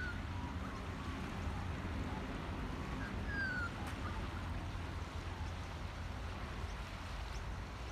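Calm beach ambience: a steady low wash of water and wind, with a short falling bird chirp at the start and another about three seconds in.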